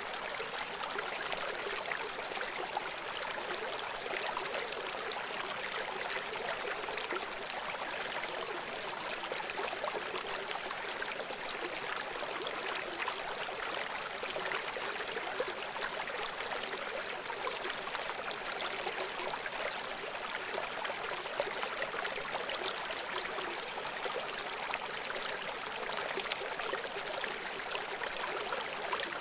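Running water of a small stream, a steady even rush with fine splashing crackle and little deep rumble.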